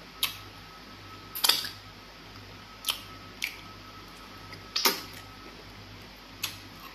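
Wet mouth smacks and clicks of someone eating pounded fufu and egusi soup by hand. Six sharp smacks come at irregular intervals, the loudest about a second and a half in and near five seconds.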